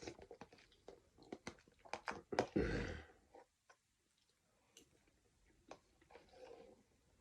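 Close-up eating sounds of a person eating chicken noodle soup: a run of small wet mouth clicks and chewing, with a louder noisy burst about two and a half seconds in. It then goes quieter, with a softer patch of chewing near the end.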